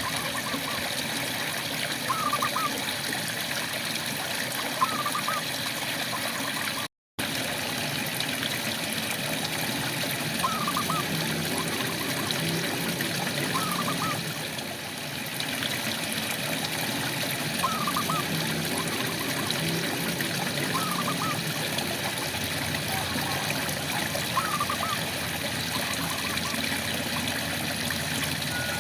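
Steady rain hiss with a frog calling over it: a short double-note call repeated every two to three seconds. The sound cuts out for a split second about seven seconds in.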